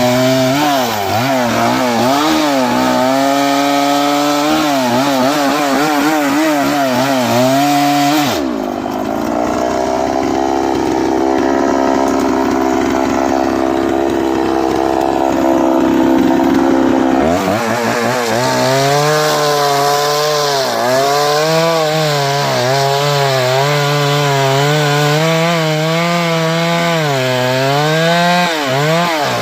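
Chainsaw running under load, its engine pitch wavering as it cuts wood. About eight seconds in it drops to a steady lower speed for roughly nine seconds, then revs back up and cuts again.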